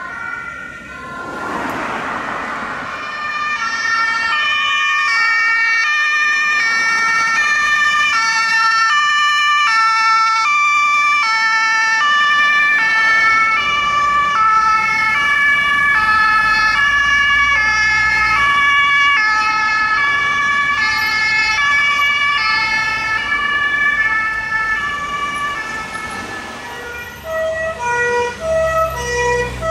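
Several German two-tone emergency-vehicle sirens (Martinshorn) sound at once, their alternating high-low notes overlapping out of step. Vehicle engines rumble louder from about halfway, and a lower-pitched, faster two-tone siren joins near the end as the vehicles drive past.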